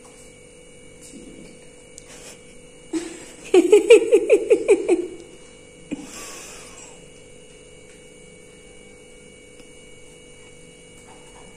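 A girl's short burst of giggling, eight or nine quick pulses, about three and a half seconds in. The rest is low room tone with a faint steady hum and a few light clicks.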